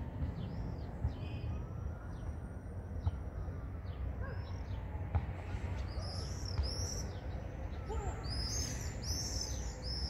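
Small birds chirping, short falling high calls that become many and rapid from about six seconds in, over a low, steady rumble of outdoor background noise.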